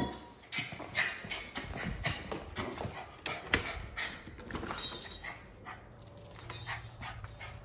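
Small dog whimpering and giving short yips, with scattered clicks and knocks throughout.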